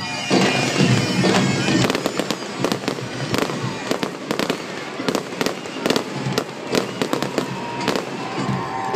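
Fireworks going off in quick succession, a dense run of bangs and crackles from the aerial shells bursting, with bagpipe music underneath.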